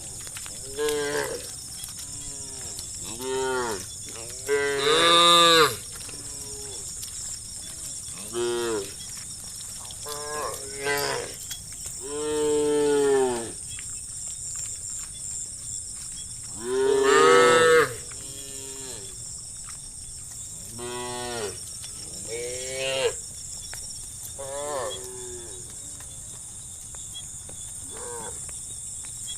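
Several cattle in a herd mooing one after another: a dozen or more calls of different pitches and lengths, some short, some long and drawn out, the loudest about five seconds in and again near the middle. A steady high whine sits underneath.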